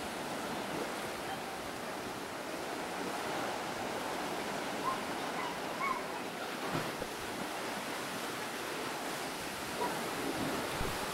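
Ocean surf breaking and washing over a rocky shoreline: a steady, continuous rushing of waves.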